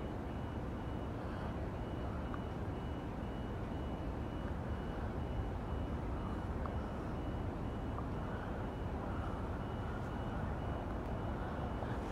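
Steady low outdoor rumble of a rail line at night, with a faint high-pitched electronic beep repeating evenly throughout.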